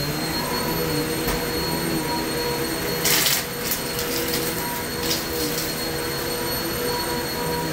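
Kenmore upright vacuum cleaner running steadily with a motor whine while picking up wood chips from carpet. About three seconds in, a brief loud rattle of chips going up through the machine, followed by a few smaller clicks.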